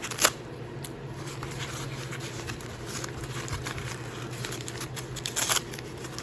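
Packaging being handled and unwrapped: faint rustling with a few short clicks or taps, over a low steady hum.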